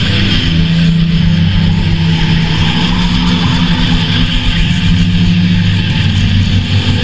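Music: heavily distorted guitar and bass chords, each held for a second or two before moving to the next.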